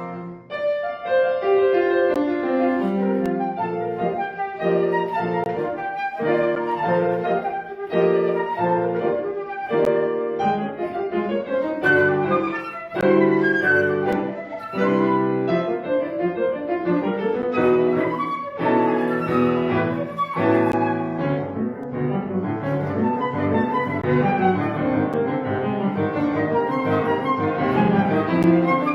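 Flute and piano playing a classical chamber piece, the piano striking chords every second or two under the flute line.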